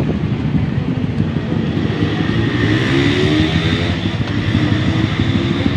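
Motorcycle engine of a Philippine tricycle (motorcycle with sidecar) running under way, with road noise. Its pitch rises as it accelerates about two seconds in, then holds steady.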